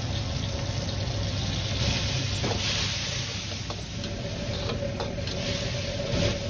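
Diced tomatoes sizzling in hot oil in a wok while a metal ladle stirs them, with a few light scrapes of the ladle on the wok, over a steady low rumble from the gas stove.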